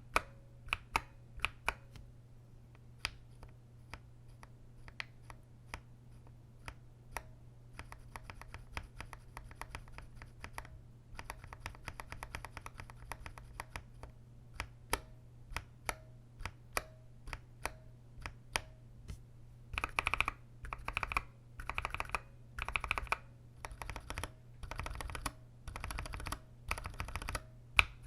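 Linear mechanical keyboard switches clacking as keys are pressed. There are single presses at first, fast runs of presses from about a third of the way in, and louder, fuller presses in the last third. A steady low hum runs underneath.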